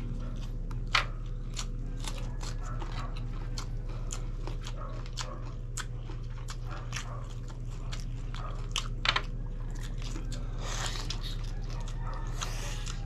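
Close-up eating sounds of people eating grilled chicken with their hands: many sharp wet clicks, smacks and crackly bites as they chew. The loudest clicks come about a second in and again around nine seconds in.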